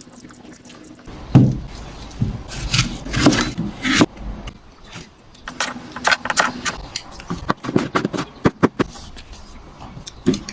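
Kitchen utensils knocking and clattering: a run of irregular sharp clicks and knocks over a low steady rumble.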